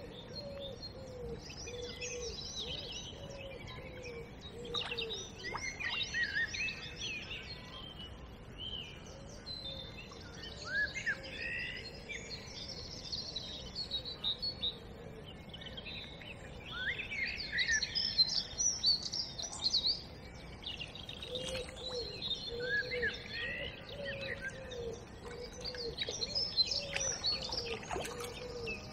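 Dawn chorus of songbirds: many chirps and trills overlapping throughout, with a low repeated cooing call under them in the first few seconds and again through the last third.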